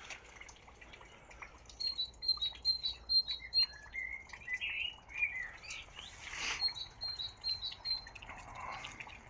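Small songbirds singing outdoors: two runs of quick, evenly repeated high notes, about four a second, with other short chirps between them. A brief rush of noise comes about six seconds in.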